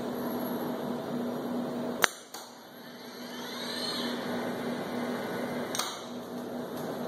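Motoman MH5L industrial robot arm at work: its servo motors hum steadily, with a faint rising-then-falling whine as the arm swings about three to four seconds in. Sharp hard clicks cut through it, the loudest about two seconds in and a fainter one near six seconds.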